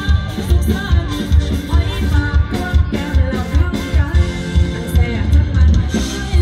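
Live band playing a song: a woman singing into a microphone over electric guitars, bass guitar and a drum kit keeping a steady beat.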